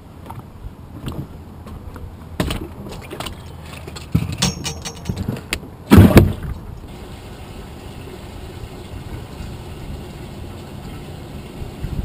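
Clicks, knocks and rattles of gear being handled in a small fishing boat as a caught crappie is dealt with, with one heavy knock about six seconds in, over a steady low hum.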